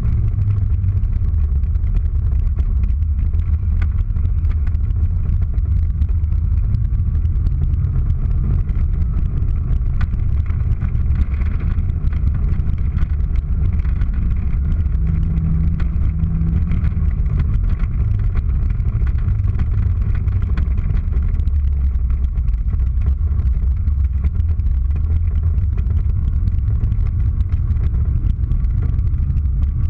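Car engine heard from inside the cabin while driving, a steady low drone that shifts up and down in pitch with the throttle.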